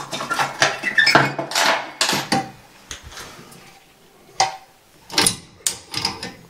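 Metal clattering and clinking as a round shower-valve cover plate (trim plate) is picked up and handled. A busy rattle of clinks comes in the first couple of seconds, then a few separate sharp clinks.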